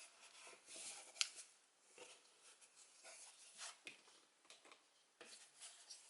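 Small plastic toy pieces being handled: soft rustling and light clicks, with one sharp click about a second in.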